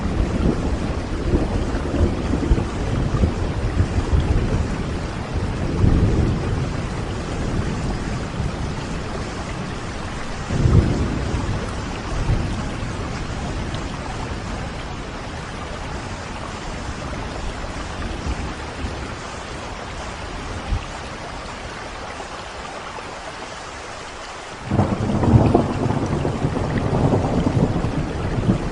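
Steady rain with rolling thunder: low rumbles swell about 6 and 11 seconds in, the rain eases for a while, then a loud thunder rumble breaks in suddenly near the end.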